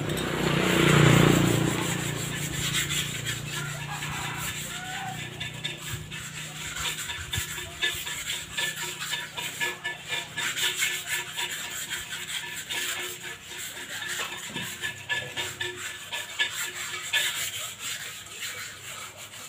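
Rapid, irregular rubbing strokes from hand-scrubbing cement flower pots clean, with a louder scrape about a second in.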